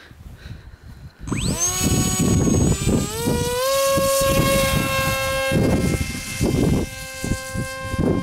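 The electric motor and pusher propeller of a Skysurfer foam RC plane spinning up sharply about a second in to a steady high whine at launch throttle, stepping up a little near the middle, as the plane is hand-launched. Wind gusts rumble on the microphone underneath.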